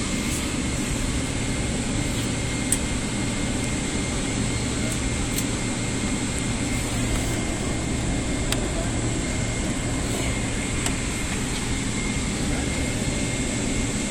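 Steady cabin noise inside a Boeing 777-300 airliner: a constant low rumble and air rush with a faint high steady whine, and one small click near three seconds in.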